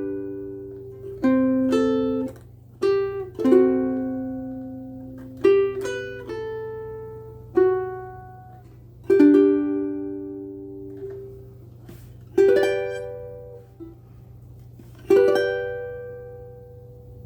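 Martin IZ tenor ukulele with Uke Logic Pink soft-tension strings, played slowly. Chords and short runs of notes are plucked every one to three seconds, and each is left to ring and fade.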